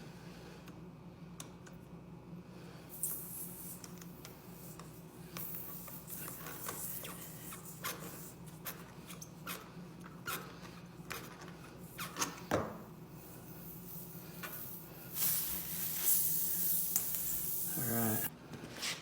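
Hand-tool work on a car tire during a plug repair: scattered clicks and knocks with several bursts of hiss, the longest a few seconds near the end, over a steady low hum.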